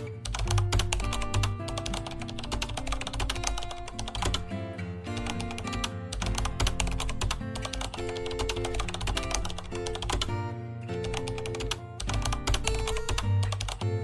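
Rapid keyboard typing clicks over background music, a typing sound effect that keeps going with short pauses.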